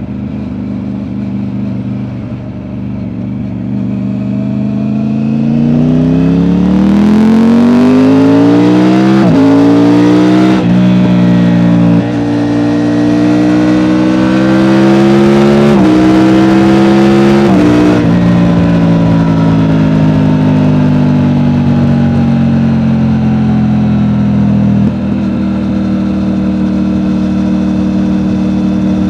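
Triumph Tiger 900 three-cylinder engine through an Akrapovic exhaust, heard from on board, accelerating hard: the note climbs, drops sharply at each upshift and climbs again several times, then settles into a steady cruise with the pitch slowly falling. The Akrapovic gives a deeper note with a bit more burble than the stock exhaust.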